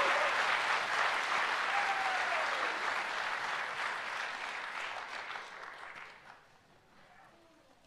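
Audience applauding, with one call from the crowd about two seconds in. The clapping dies away about six seconds in.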